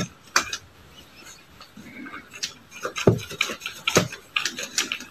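Irregular rustling, tapping and scraping of paper as a cat paws and pushes its head in among a stack of papers and books, with a couple of heavier thumps about three and four seconds in.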